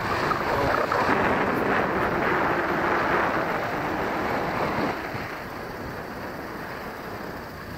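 Wind rushing over the microphone at the window of a moving car, mixed with road and engine noise. It is loudest for the first five seconds or so, then eases to a lower steady rush.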